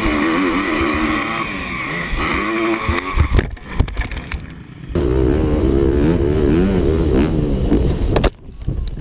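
Dirt bike engine running hard on a motocross track, its pitch wavering with the throttle, recorded on board. A few sharp knocks come about three and a half seconds in. After a cut about five seconds in, another dirt bike engine runs steadily until the sound drops off abruptly near the end.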